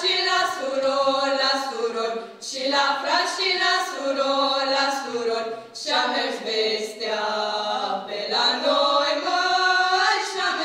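Four women's voices singing a folk song a cappella in close harmony, in phrases broken by short breath pauses.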